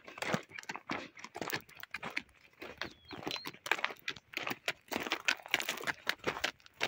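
Hooves and footsteps crunching on a gravel track, as a loaded donkey walks and a person walks close behind; the steps come in a quick, irregular run.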